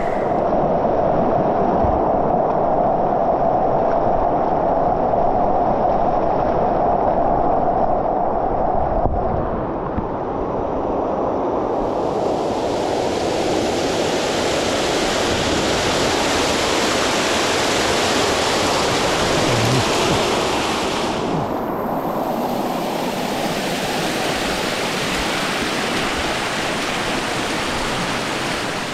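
Mountain stream water rushing and cascading over rocks and small falls, a steady rush of water. It sounds muffled at first, then fuller and brighter from about twelve seconds in.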